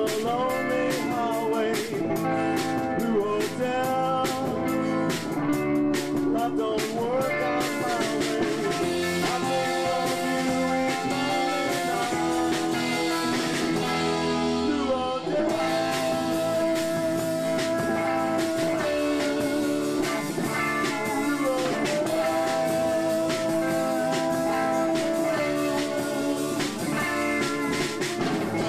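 Live band playing: electric guitar and drum kit, with long held and bending lead notes over a steady beat.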